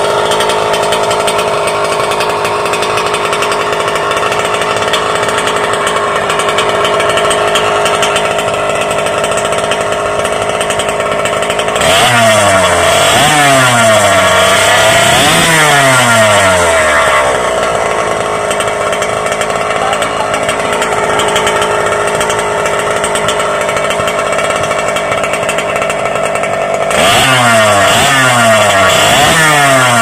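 Small two-stroke engine of a China-made Goped-style stand-up scooter running through an aftermarket non-DD expansion-chamber pipe. It runs steadily, then is revved in a run of quick throttle blips about twelve seconds in and again near the end, the pitch jumping up and falling back each time.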